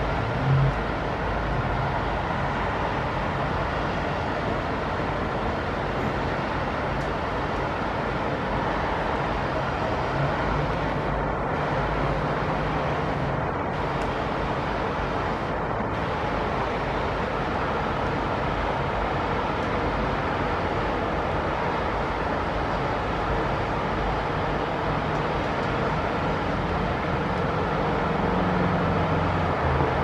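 Steady city ambience at night: an even, continuous hiss over a low rumble of distant traffic, with a faint engine hum coming and going and growing a little louder near the end.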